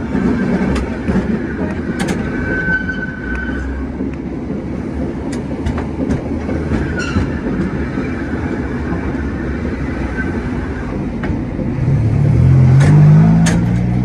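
San Francisco cable car riding downhill on its rails: a steady rumble and rattle from the car and its cable, with scattered clicks and clanks and a brief squeal about three seconds in. Near the end a louder, rising low hum comes in.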